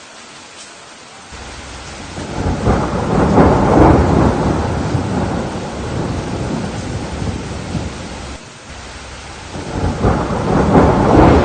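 Rain falling steadily while thunder rolls: a deep rumble swells about two seconds in and slowly fades, and a second roll builds near the end.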